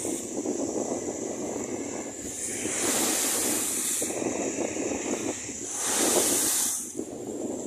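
Storm-driven lake waves crashing against a seawall and splashing over the railing, over a steady rush of water. Two loud surges of spray hiss come about three and six seconds in.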